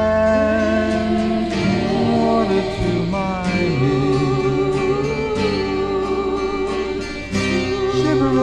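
Late-1960s folk-psych song: guitars and bass playing under a held, wavering melody line, between sung verses.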